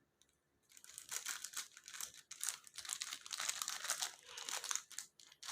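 Plastic packaging crinkling as accessory bags from an action-camera box are handled, in quick uneven rustles that start about a second in.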